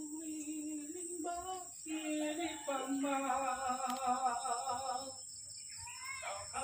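A person humming a slow tune in long held notes, pausing briefly about five seconds in.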